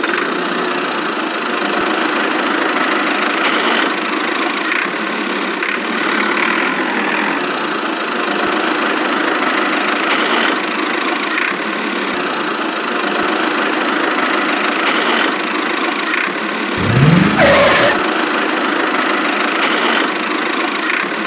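Small motor running steadily with a dense mechanical whirr, with a brief rising sweep in pitch about seventeen seconds in.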